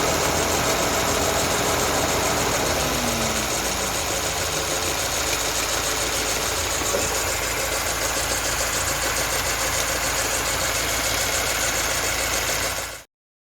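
Mini R56 engine running steadily at idle. It cuts off suddenly near the end.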